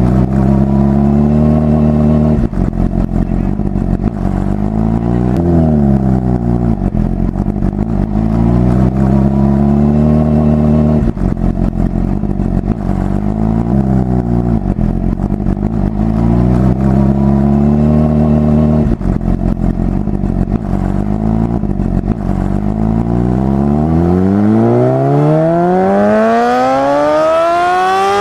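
Recorded motorcycle engine sound effect, running with the revs dipping and rising every few seconds, then from about three quarters of the way in a long, steeply rising rev.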